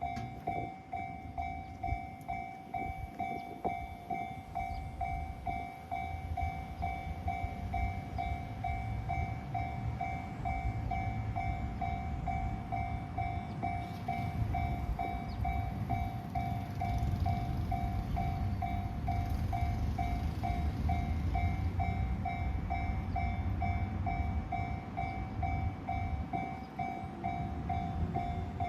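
Japanese level-crossing warning bell dinging steadily, about two electronic dings a second. Under it a freight train hauled by an EF66 electric locomotive rumbles on the track, growing louder from about ten seconds in.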